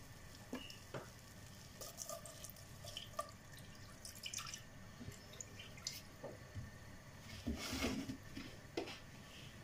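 Milk being poured into a saucepan of melted butter: faint splashing and dripping, with a louder rush of liquid about eight seconds in.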